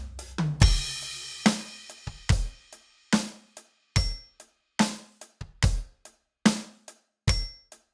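Roland TD-27KV electronic drum kit played in a groove exercise. Bass drum hits and a ringing cymbal crash come about half a second in, then single strokes on the drums, bass drum and hi-hat, evenly spaced with dead silence between them.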